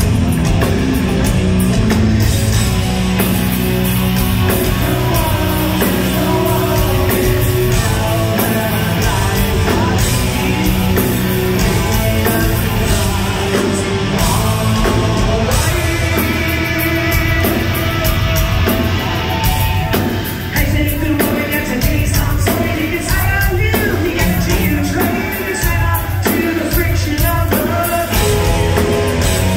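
Hard rock band playing live: electric guitars, bass and drums at full volume, with a male singer's voice over the band in the second half.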